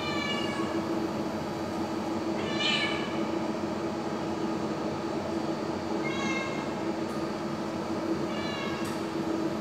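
A cat meowing four times, short calls falling in pitch about every two and a half to three seconds, over a steady low hum.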